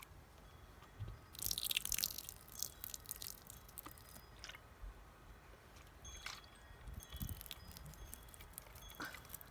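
Small water sounds: scattered drips and short liquid pops, with a crackly, hissy burst about a second and a half in.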